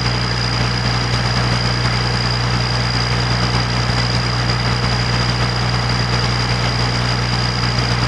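Heavy engines of a hot in-place asphalt recycling machine running steadily at a constant speed, a deep even drone with a thin steady high whine above it.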